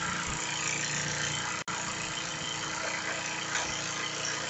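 Small electric starter motor turning over a homemade brass HHO engine, a steady whir that cuts out for an instant a little over a second and a half in. The engine is being motored and does not fire, because the ignition gives no spark while it runs.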